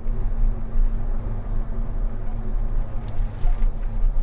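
Car driving through deep flood water, heard from inside the cabin: a steady low rumble of the engine with the wash of water against the car.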